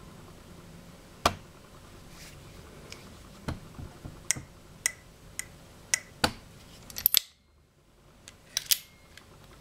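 Sharp metallic clicks of an air revolver's hand-worked action as the hammer is cocked and the cylinder turns, about ten clicks, some with a short high ring after them.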